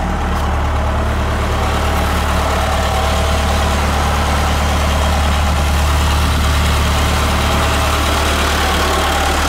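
Trackless MT5 tractor's engine idling steadily, a low even hum.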